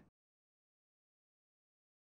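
Near silence: the soundtrack drops to digital silence.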